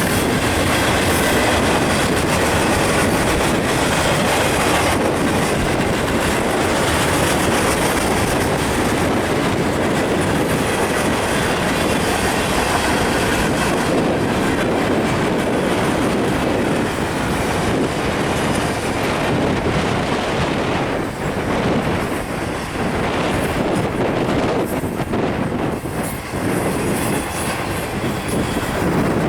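A freight train rolling steadily past, its wheels clattering over the rails.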